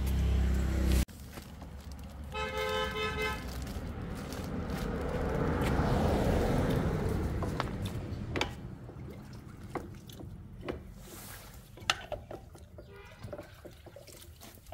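A vehicle horn honks once for about a second, then a passing vehicle's noise swells and fades away, followed by scattered clicks and knocks. A low rumble cuts off suddenly about a second in.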